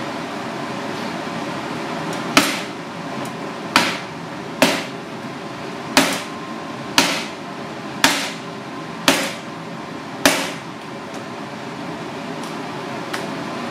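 Kitchen knife chopping down through fish fins onto a plastic cutting board: eight sharp knocks, each with a short ring, at uneven gaps of about a second, with a steady kitchen hum underneath.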